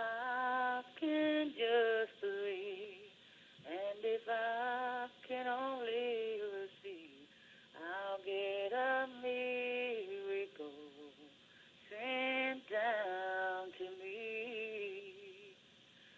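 A slow song: one singer holding long notes with vibrato, in phrases broken by short pauses.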